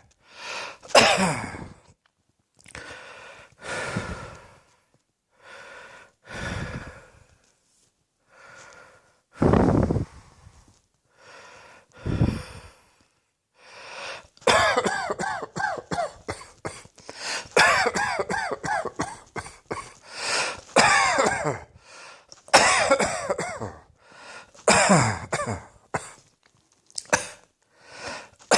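A person coughing: single coughs spaced a second or two apart, then from about halfway a long fit of rapid coughs in quick succession.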